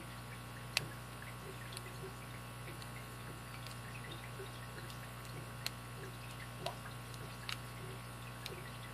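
Lock pick and tension wrench working in the keyway of a vintage four-pin Master gun lock: a few sharp little metallic clicks as pins are picked, the loudest about a second in and several smaller ones in the second half, over a steady low hum.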